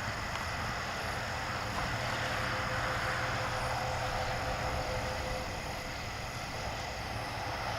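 Aircraft passing overhead: a steady engine drone with a faint held tone underneath that drops out about two-thirds of the way through.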